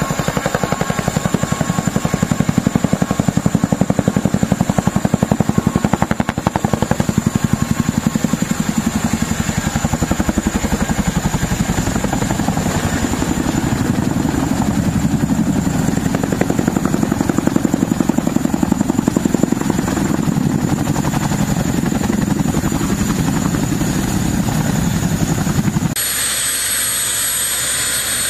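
CH-47 Chinook tandem-rotor helicopter flying close by: a loud, rapid rotor beat over the drone of its twin turboshaft engines. About two seconds before the end the sound changes suddenly to the helicopter turning on the ground, the rotor beat much weaker and a steady high turbine whine on top.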